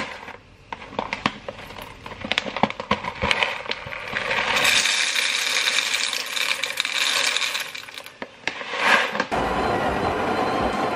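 Whole coffee beans rattling as they are poured from a bag into a grinder hopper: a scatter of clicks at first, then a steady pouring rush. About nine seconds in, an espresso burr grinder starts grinding into the portafilter.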